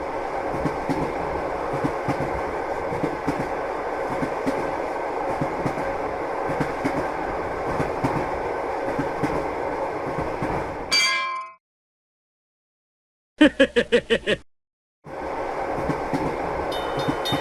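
Train-running sound effect: a steady rumble with rail clatter that cuts off abruptly about eleven seconds in. After a short gap comes a quick run of about six pitched pulses, then the rumble starts again.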